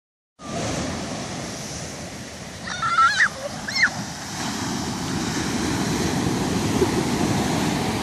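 Atlantic surf breaking and foam rushing up a sandy beach, a steady rush. About three seconds in, a person gives two short, high-pitched cries.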